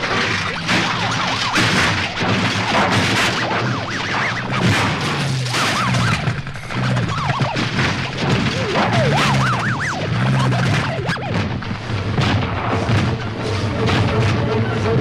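Film action soundtrack of car stunts: a car crashing as it rolls over, then repeated explosions and crashes, mixed with music and a low wail that rises and falls about once a second.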